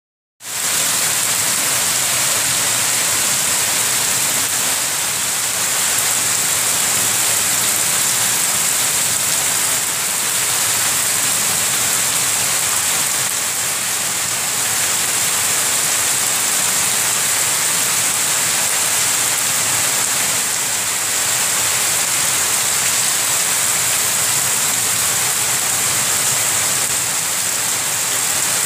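Heavy rain falling steadily onto waterlogged bare earth and puddles, an even, unbroken wash of sound.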